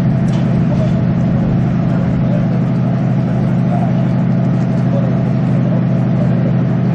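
Floating crane's engine running steadily at constant speed, a loud deep drone that holds the same pitch throughout.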